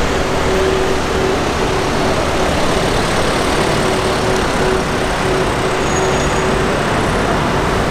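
Slow city street traffic: car engines running, as a steady, dense roar with a constant hum through most of it.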